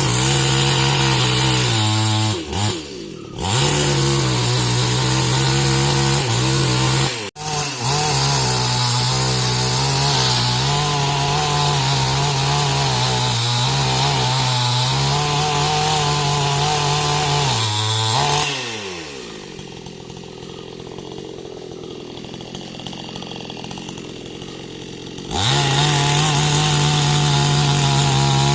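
Two-stroke chainsaw running at high revs, cutting wood. The revs dip briefly early on. About two-thirds through, the engine winds down to a quieter idle for several seconds, then revs back up near the end.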